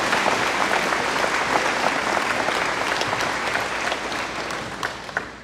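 Audience applauding, many hands clapping steadily, then dying away near the end.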